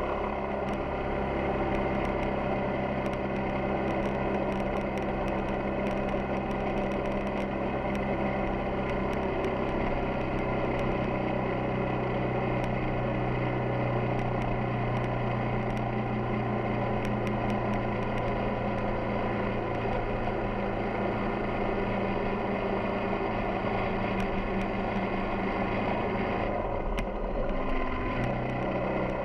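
Yamaha XTZ 250 Ténéré's single-cylinder engine running steadily under way, with a brief drop in engine note near the end.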